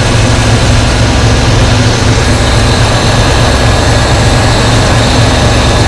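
Ford Bronco's engine idling steadily, heard up close in the open engine bay, with a strong low hum under a wide whooshing noise of the fan and belts.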